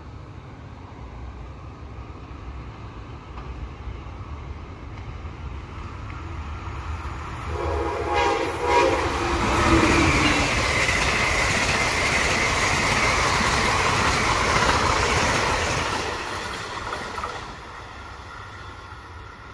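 Amtrak Siemens ACS-64 electric locomotive leading a passenger train past at speed. The noise builds, the horn sounds for a few seconds a little before halfway and drops in pitch as the locomotive passes, then the cars rush and rumble by for about seven seconds before the sound falls away near the end.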